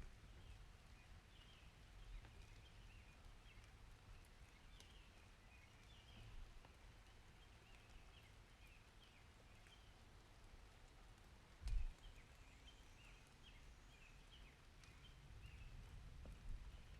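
Faint outdoor nature ambience: many short, high chirping calls go on throughout over a low rumble, with a single dull thump about two-thirds of the way through.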